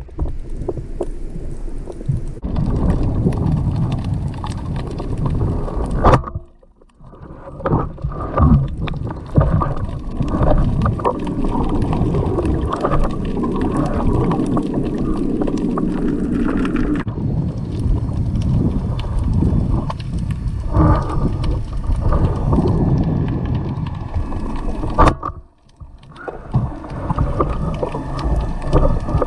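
Motorboat under way: steady engine and water noise with wind on the microphone, dropping away sharply twice.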